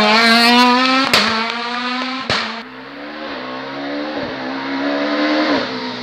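Rally car engine at full throttle, revs climbing as the car passes close by. Two sharp cracks follow, then the engine pitch rises and drops several times with each upshift as it pulls away and grows fainter.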